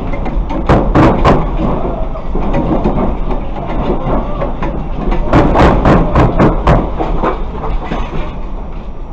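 Earthquake shaking an apartment building: a loud, continuous low rumble with rattling and clattering knocks, in two flurries about a second in and again around five to seven seconds. A parked bicycle shakes and topples over during the second flurry.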